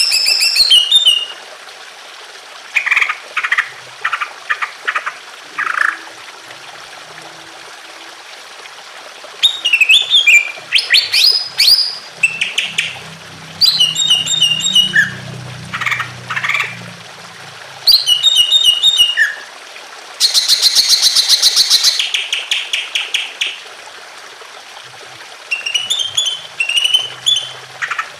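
Cucak ijo (leafbird) singing in separate bursts of quick, sliding whistled and chattering phrases with pauses between them, including a dense, very fast high trill about two-thirds of the way through, over a steady faint trickle of running water.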